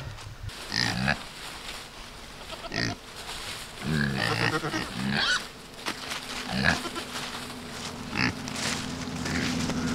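Several pigs grunting in short calls, roughly one every second, as they crowd the fence expecting to be fed.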